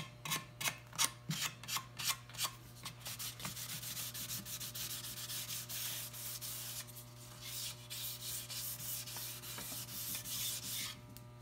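Fine sandpaper rubbed by hand over the varnished wooden hull of a boat half model, a light sanding between coats of varnish. It starts as quick separate strokes, about three a second, then turns into steadier continuous rubbing that stops near the end.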